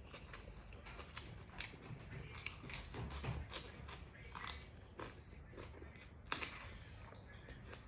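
A person eating spicy grilled-pork salad (nam tok moo) with raw vegetables close to the microphone. Biting and chewing, with many short crisp crunches and mouth clicks at irregular intervals.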